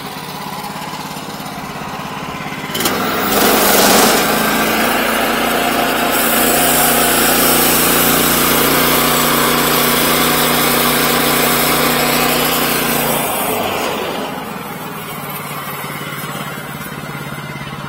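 Sawmill's petrol engine running at a low idle, then throttled up about three seconds in and running hard and steady for about ten seconds as the blade cuts through the timber, then dropping back to idle near the end.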